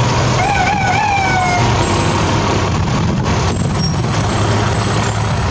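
Fire-department aerial ladder truck's diesel engine running as it drives off, a steady low rumble. A brief wavering tone rises and falls about half a second in.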